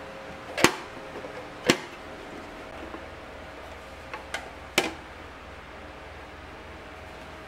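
Sharp plastic clicks from handling a white plastic wall-mounted storage box and its flip-down lid: two single clicks in the first two seconds, then three quick ones about four to five seconds in as the lid is worked.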